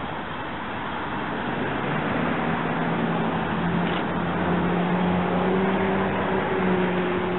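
A vehicle out of view humming steadily over a rumble, growing louder about two seconds in, with a faint click about four seconds in.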